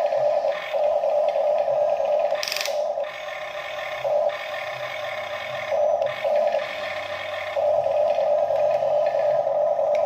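Small electric motors and plastic gearboxes of a radio-controlled construction toy whirring in stops and starts as its controls are worked, with a sharp click about two and a half seconds in.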